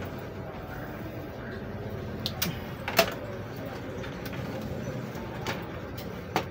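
Scattered light clicks and knocks from hands handling cables and parts inside an open desktop PC case, the sharpest about three seconds in, over a steady low background hum.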